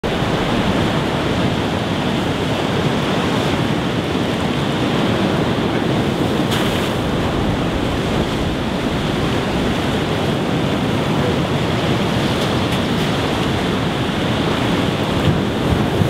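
Sea surf washing over rocks: a steady rushing noise.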